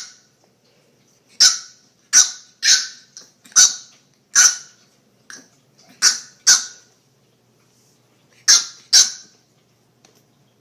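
A dog barking, about ten short, sharp barks at uneven intervals, several coming in quick pairs.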